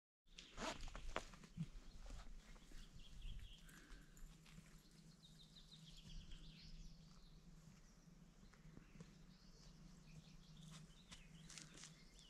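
Near silence: faint outdoor ambience with a few soft clicks and rustles in the first couple of seconds and a faint wavering high call midway.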